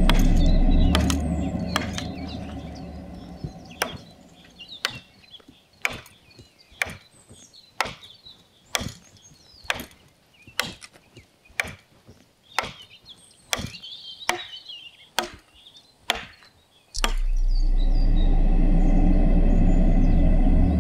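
Wood being chopped by hand with a blade, sharp blows about once a second. Birds chirp faintly. A steady low background sound fades out over the first few seconds and cuts back in abruptly near the end.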